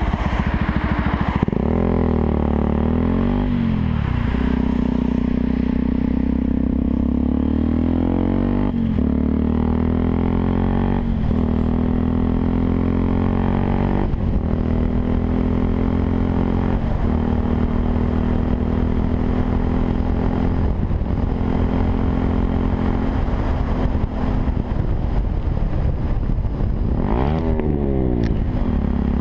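Yamaha WR 125 R's single-cylinder four-stroke engine running through a Takkoni aftermarket exhaust. It is revved up and down near the start and again near the end, with short breaks in the note every few seconds in between.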